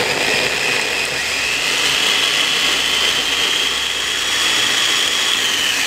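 Mitochiba CH100 electric food chopper running continuously, its blades grinding shallots, garlic, ginger, galangal and candlenuts with a little water into a spice paste. The motor gives a steady whine that rises a little about two seconds in, and near the end it begins to fall in pitch.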